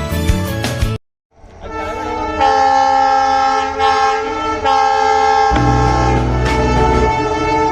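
Music cuts off about a second in. After a brief silence, a railway locomotive's multi-tone horn fades in and is held steadily for several seconds, with a low rumble of the train joining it later on.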